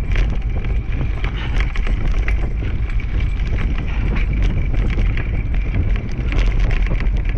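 Steady low rumble and wind buffeting on the microphone from a dryland dog rig running over a rough woodland trail. Many quick clicks and rattles sound as the rig jolts over the ground.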